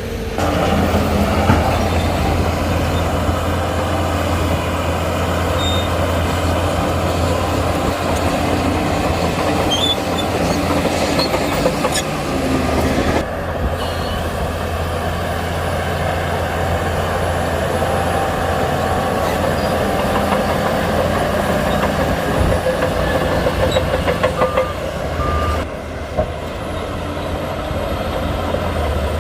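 Shantui crawler bulldozer's diesel engine running steadily while working, easing off briefly about halfway through and again near the end.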